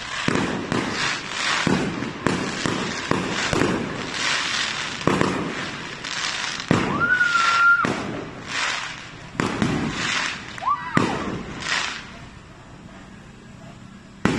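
A fireworks display going off in a rapid barrage of bangs and crackle, several explosions a second, thinning out after about twelve seconds. A steady whistling tone lasts about a second midway through.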